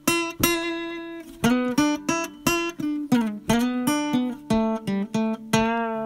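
Outro music on acoustic guitar: a run of plucked notes and chords, a few to the second.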